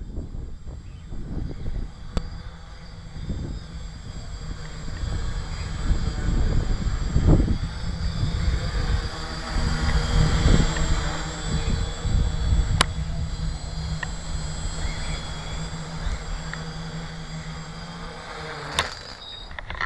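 Tricopter's motors and propellers buzzing steadily in flight, with a high whine over the drone. Gusty wind buffets the microphone in irregular low rumbles.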